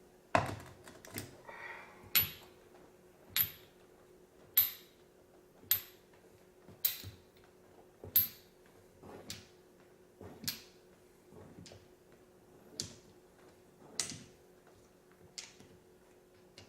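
Metal sockets set one by one into holes cut in a rubber stall mat, each making a sharp click with a brief metallic ring, about once a second. A faint steady hum runs underneath.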